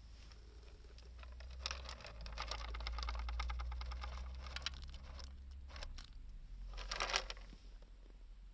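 Small wood fire crackling: a dense run of little pops and clicks for a few seconds, then scattered clicks and a short burst of crackles near the end.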